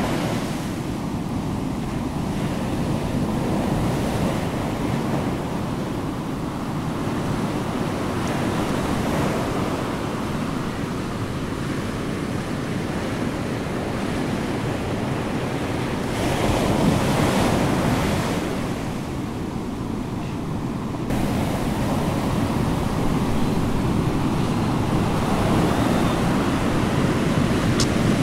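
Steady rushing noise like ocean surf, swelling and ebbing slowly.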